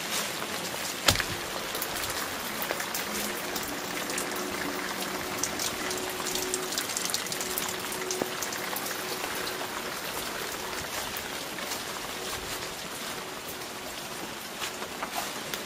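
Steady rain: a hiss of falling water with many small drops ticking, and one sharper tap about a second in.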